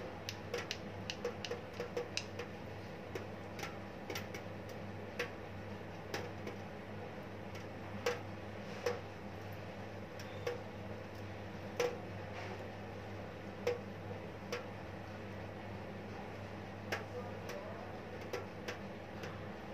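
Short, irregular light clicks and taps, a quick cluster in the first two seconds and then one every second or so, over a steady low hum.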